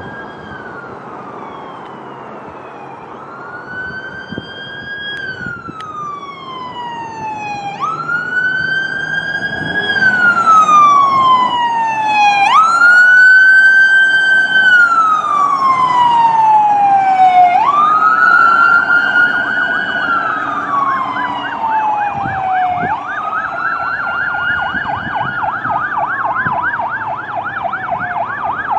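Fire department duty chief's pickup truck siren on wail, each cycle rising quickly and falling slowly over about five seconds, getting louder as the truck approaches and passes. Near the end a rapid yelp sounds over the wail.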